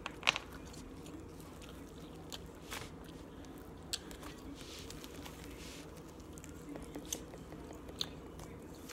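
Slime being kneaded and stretched by hand: scattered sticky clicks and pops with a soft squishing.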